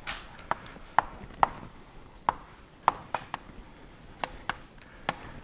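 Chalk writing on a blackboard: about a dozen sharp, irregular taps and short scrapes as the letters are written.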